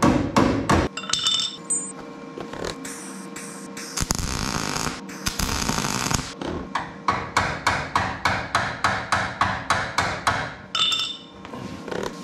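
Hand hammer striking car-body sheet metal in quick, evenly spaced blows, about three or four a second, stopping about a second in and starting again past the middle. Between the hammering, from about four to six seconds in, a MIG welder crackles steadily as it lays a weld on the panel.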